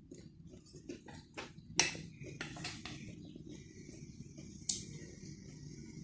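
Close-miked eating sounds: chewing and crunching with scattered sharp clicks, two louder crunches standing out.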